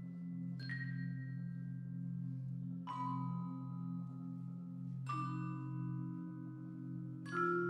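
Mallet percussion in a slow passage: single struck, ringing metal-bar tones, one about every two seconds, each left to ring out over a steady low drone.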